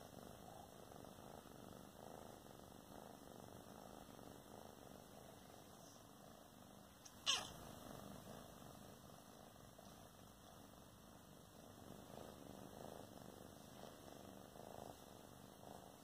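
A kitten purring faintly and steadily, in an even rhythmic pulse. A single sharp click about seven seconds in stands out above it.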